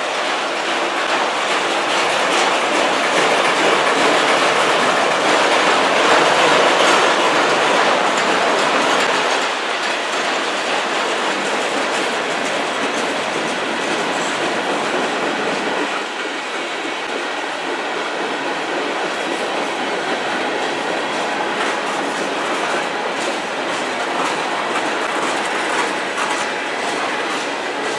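Cars of a CN freight train rolling past: a steady rumble and clatter of steel wheels on the rails, loudest in the first several seconds and then steady.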